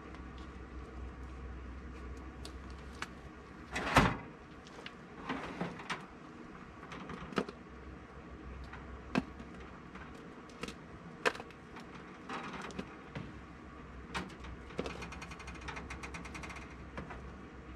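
Clinks, knocks and scrapes of a smoker's wire racks and a metal tray as smoked salmon pieces are lifted off by hand, with one sharp knock about four seconds in and a short rattle near the end, over a steady low hum.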